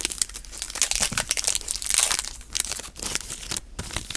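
Foil trading-card pack wrapper crinkling and being torn open by hand, a dense run of irregular crackles.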